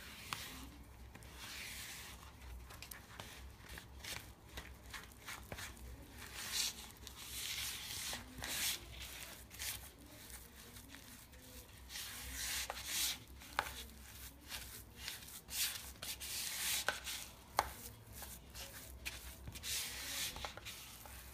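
Spatula stirring and scraping a thick brownie mixture of melted butter, sugar, flour and cocoa in a bowl: irregular scraping strokes with a few sharp clicks.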